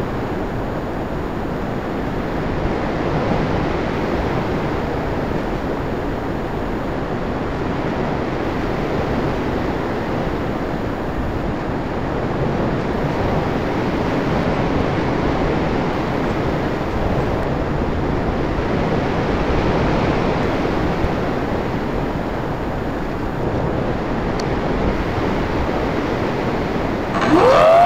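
Steady wind rush over an RC plane's onboard camera microphone in flight. Near the end the plane's motor spins up, a whine rising in pitch and then holding.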